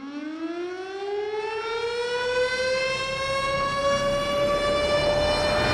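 Air-raid (civil defense) siren winding up: one wailing tone that climbs in pitch, quickly at first and then levelling off, and grows louder throughout.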